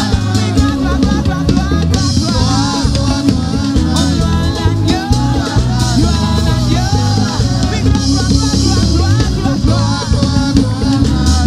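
Church choir and a lead singer with a microphone singing a worship song over drums and a band.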